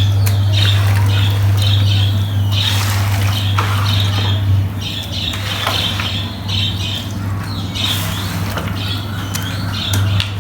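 A machine's steady low hum, likely a carpet-washing machine running, with irregular high chirping squeaks coming and going over it.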